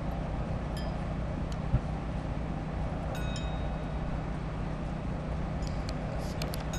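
Large wooden structure burning: a steady low roar of the fire, with a brief knock about two seconds in and a few short, faint high chime-like tones in the middle and near the end.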